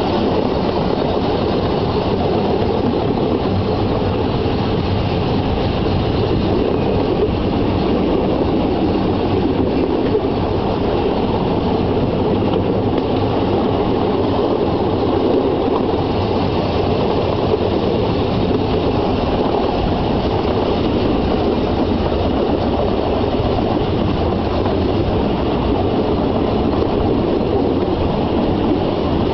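Narrow-gauge railway wagons running along the track, heard from aboard: a steady rumble and rattle of wheels on rail that carries on without a break.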